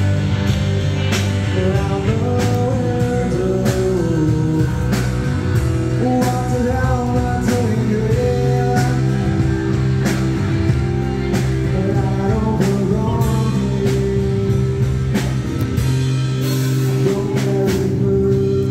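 Rock band playing live, with a singer over guitar and a steady drum beat.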